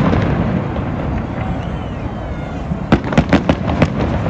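Aerial fireworks bursting: a continuous low rumble of exploding shells, then a quick run of about six sharp bangs about three seconds in.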